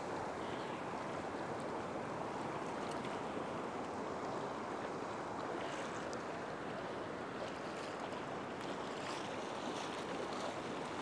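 Small waves washing in steadily in shallow surf.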